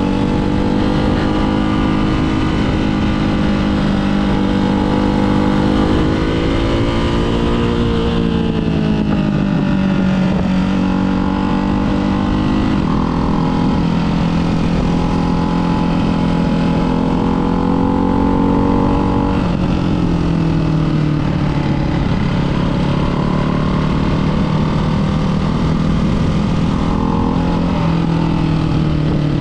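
Ducati Hypermotard 698's single-cylinder engine through a Termignoni exhaust with the baffles fitted, running steadily with the engine speed drifting gently up and down and easing lower about two-thirds of the way through.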